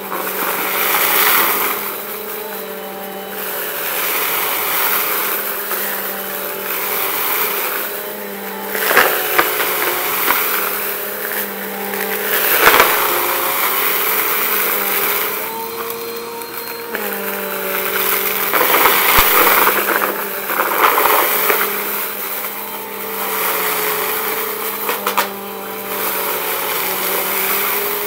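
Bissell compact upright vacuum running with a steady motor hum as it sucks up a pile of shavings, confetti and lint from carpet. The debris crunches and rattles up into the clear bin in surges every few seconds as the head is pushed into the pile and pulled back.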